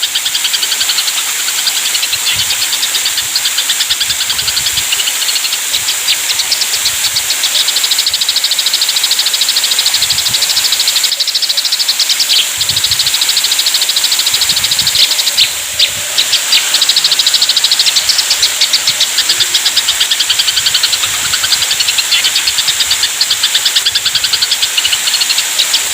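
Eurasian tree sparrows in an aggressive chattering bout: a fast, unbroken string of high chirps, over a steady high hiss.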